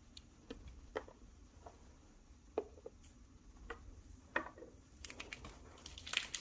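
Faint light taps and clicks of small plastic toy figures being picked up and set down on a hard tabletop: a few scattered taps, then a quicker cluster near the end.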